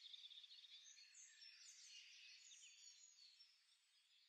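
Near silence with faint, high bird chirps, fading away near the end.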